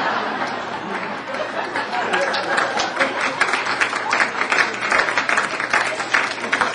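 Audience laughing at a punchline, the laughter loudest at the start and tapering off, with clapping joining in about two seconds in and going on as scattered applause.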